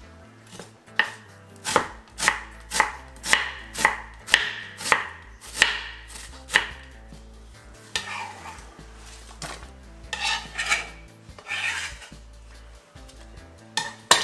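Santoku knife chopping red onion on a wooden cutting board: about ten crisp strokes, roughly two a second. Then softer, irregular scraping as the chopped onion is swept off the board.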